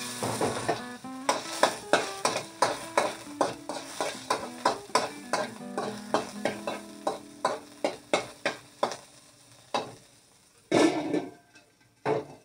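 Food stir-frying in a hot pan: a steady sizzle with a spatula scraping and knocking against the pan about three times a second. The sizzle and strokes die down near the end, followed by two louder clatters.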